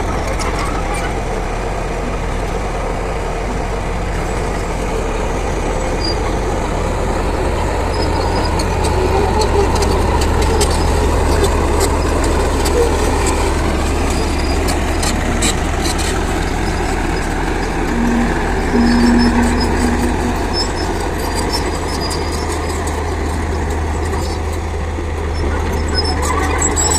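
Heavy diesel earthmoving machine running steadily under work, a continuous low engine drone with a brief steady tone about two-thirds of the way through.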